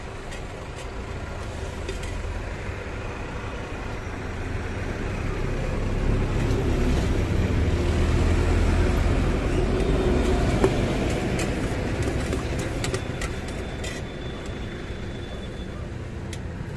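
A motor vehicle passing close by: engine rumble and road noise swell over several seconds, loudest about halfway through, then fade. A few sharp clicks come in the second half.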